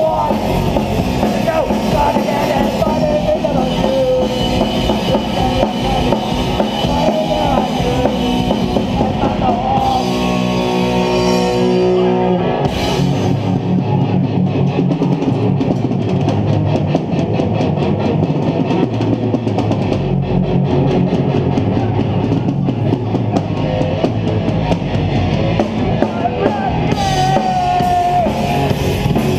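Live hardcore punk band playing loud, with distorted electric guitars and a drum kit. About ten seconds in the band holds ringing chords for a couple of seconds, then drives on again.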